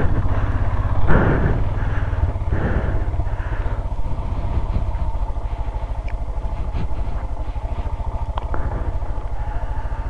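Motorcycle engine running steadily, a fast even pulse with no rise or fall in pitch.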